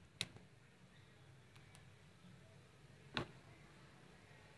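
Near silence broken by two faint clicks: a spoon tapping the glass bowl while thick strained curd is beaten with sugar.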